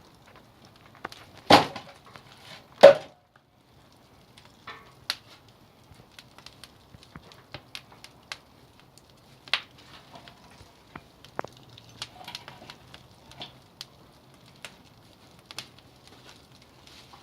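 Two loud knocks of wood on wood about a second and a half apart, then scattered sharp pops and crackles of firewood burning in a wood-fired kiln.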